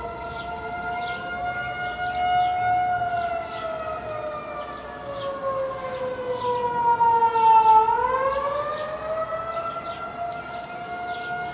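Outdoor tornado warning sirens wailing, several tones overlapping. Their pitch sinks slowly for several seconds, then swings back up about eight seconds in, where they are loudest.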